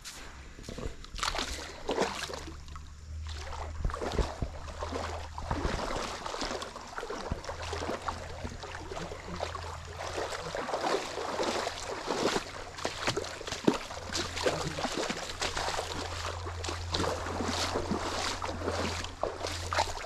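Feet wading through a shallow, muddy stream, the water sloshing and splashing irregularly with each step.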